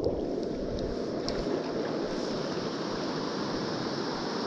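Steady rush of a shallow, clear river flowing over a stony bed, with a few faint ticks about a second in.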